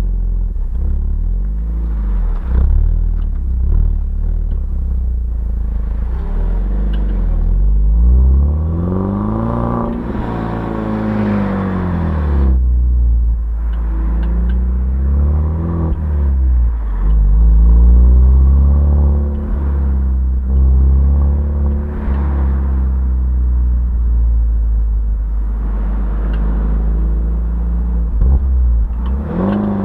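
BMW 116i E87's four-cylinder petrol engine with its stock exhaust, running at a steady low hum and revved up and down several times, the pitch rising and falling smoothly with each rev, the longest about a third of the way in.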